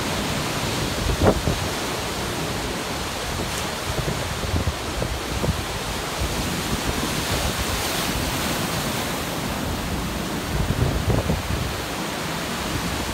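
Heavy storm surf breaking and churning on a rocky shore, a steady rushing wash, with strong wind buffeting the microphone in low gusts.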